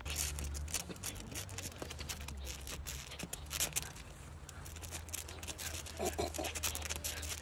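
Low wind rumble on a phone microphone, with scattered scratchy clicks and taps throughout and a brief pitched, voice-like sound about six seconds in.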